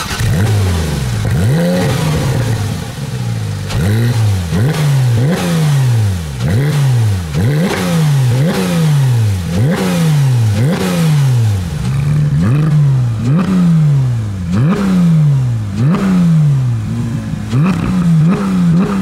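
Porsche 911R's 4.0-litre naturally aspirated flat-six, heard at the exhaust, blipped repeatedly while standing still, about once a second. Each rev climbs sharply and falls back more slowly, the quick response of a fast-revving engine.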